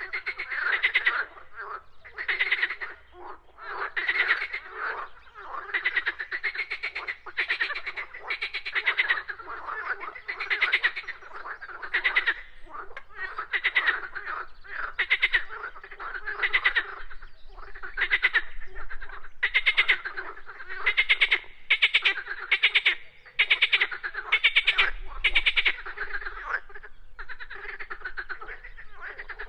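Chorus of many frogs croaking, their short rattling calls overlapping and repeating without a break.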